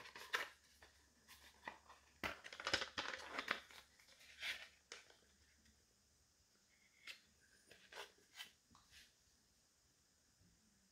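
Packaging being handled and unwrapped: short bursts of rustling, crinkling and tearing over the first five seconds, then a few light clicks.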